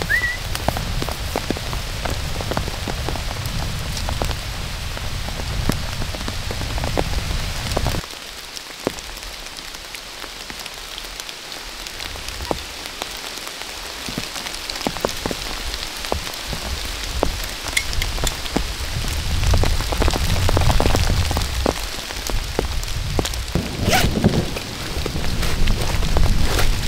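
Heavy rain falling on a surface, with many close drops ticking sharply. A low rumble swells about twenty seconds in.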